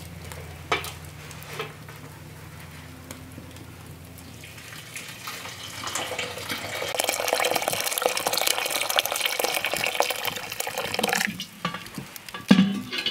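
Hot water poured from a kettle into a copper pot over the fire, a steady stream that swells, runs for about six seconds, then stops sharply. A short knock near the end.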